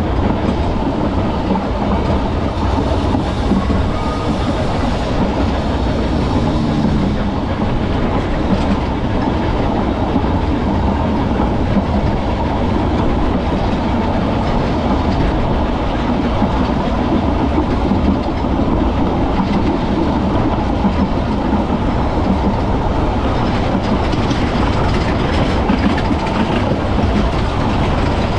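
Vintage Manx Electric Railway tramcar running along its narrow-gauge track, heard from on board: steady running noise of wheels on rails, unbroken throughout.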